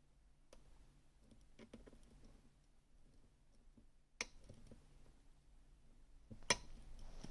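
Faint scattered ticks of lock-picking tools working the sliders of a Gerda Exxo lock, with two sharper clicks, about four seconds in and, louder, near the end.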